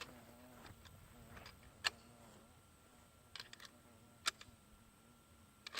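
A few faint, sharp clicks and taps spread over a quiet background, the small handling noises of gear being readied at a shooting position.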